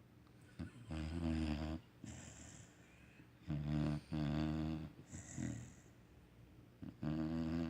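Basset Hound puppy snoring in its sleep: three loud, pitched snores roughly every three seconds, with softer breathy exhales between them.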